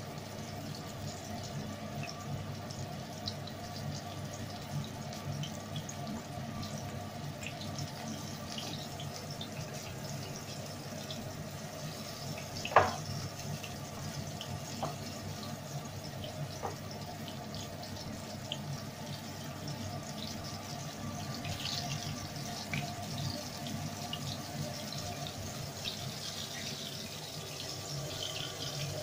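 Fish frying in a pan of hot oil: a steady sizzle with scattered small crackles, and one sharp click about 13 seconds in.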